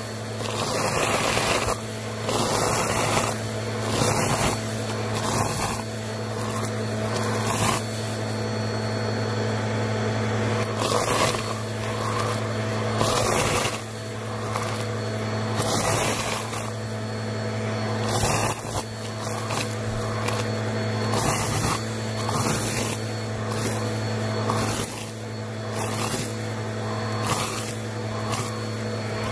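Vacuum cleaner running steadily through a hose nozzle, sucking up dry yellow flakes and clumps of dust and hair from carpet. Crunchy, crackling bursts come every second or two as debris rattles up the tube over the steady motor hum.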